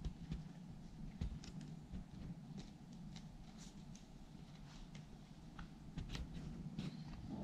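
Faint scratchy rustles and small clicks of a kitten moving about on a person's denim-covered leg, over a low steady hum.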